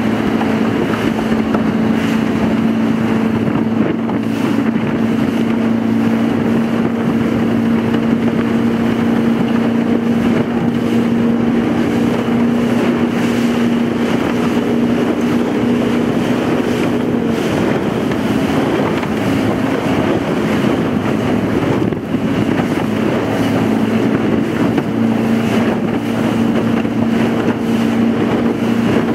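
Outboard motor of an inflatable boat running steadily at cruising speed across choppy water, with wind rushing over the microphone. The engine's drone fades behind the wind and water noise for several seconds past the middle, then comes back.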